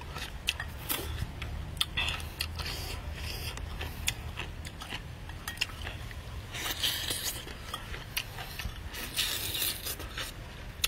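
A man eating with his mouth open: wet chewing, lip smacks and small crunches that come as frequent short clicks, with two stretches of hissing sucking or slurping about seven seconds in and near the end.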